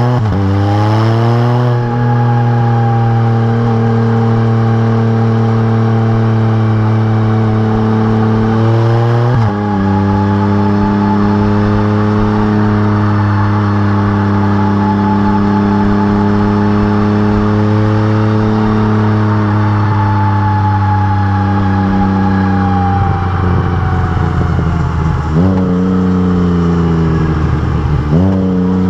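Exhaust of a 2020 Can-Am Spyder RT Limited's Rotax 1330 three-cylinder engine, fitted with RLS Exhaust Crusher mufflers, under way on the road. The engine revs up steeply at first, then holds a steady note, with quick pitch jumps from gear changes about ten seconds in and twice near the end.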